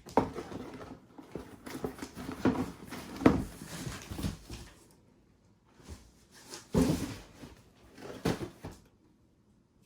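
Packaging of a plastic model kit being handled: irregular rustling with light knocks and scrapes, a pause about five seconds in, then a few sharper knocks before it goes still near the end.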